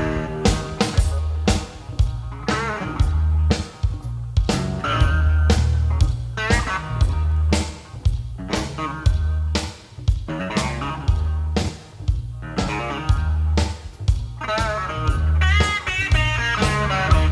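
Blues-rock band playing: electric guitar lead over bass and drums keeping a steady beat.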